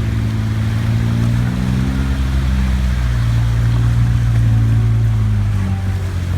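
4x4 vehicle's engine running steadily under load, its pitch rising slowly and then dropping about five and a half seconds in, over a steady rushing noise.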